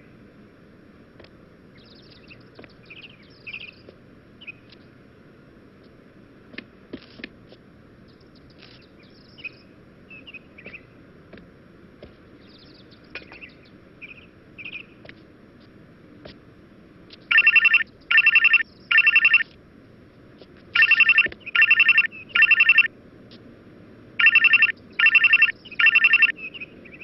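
Telephone ringtone: short trilling rings in groups of three, repeating about every three and a half seconds, starting about 17 seconds in. Before the rings come only faint, scattered chirps over a low hiss.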